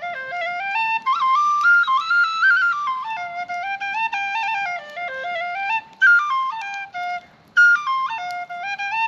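A small flute-like wind instrument playing a simple tune in distinct stepped notes, a rising and falling phrase repeated, with a short break a little after seven seconds.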